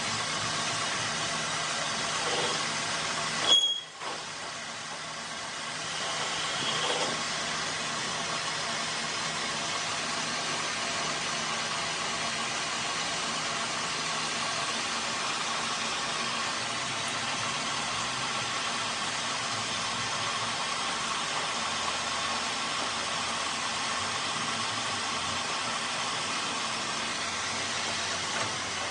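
A machine running steadily, a hum of evenly spaced tones over a hiss. It spikes and cuts out briefly about three and a half seconds in, then comes back a little louder about six seconds in.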